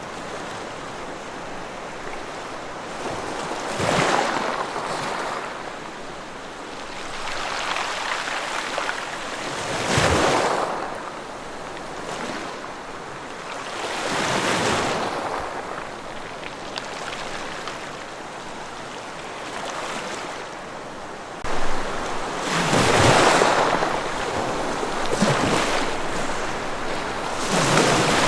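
Ocean waves breaking and washing on the shore, each surge of surf swelling and fading one after another every few seconds.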